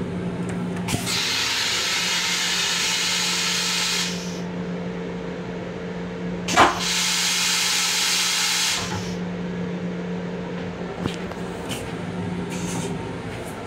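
M7 railcar toilet flushing twice: each time a click is followed by a few seconds of rushing hiss, the first about a second in and the second about six and a half seconds in. A steady hum runs underneath.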